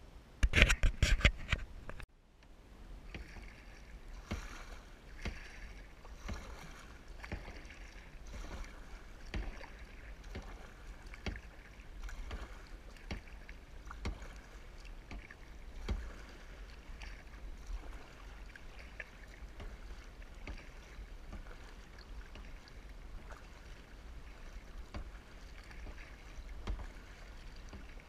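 Kayak paddle strokes, the blades dipping and splashing in calm water about once a second. It opens with a loud burst of knocking lasting about two seconds.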